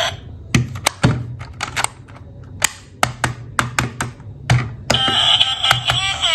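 A dozen or so irregular sharp clicks and knocks, hard plastic toy vehicles being handled and set down. About five seconds in, a tuneful electronic sound starts up.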